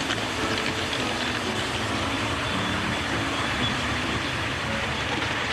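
Miniature live-steam locomotive running along its track: a steady noise with no clear beat.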